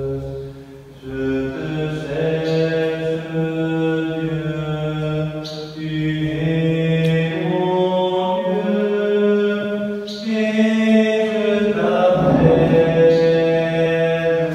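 Singing of a slow church hymn in long held notes, each phrase starting on a short hissing consonant.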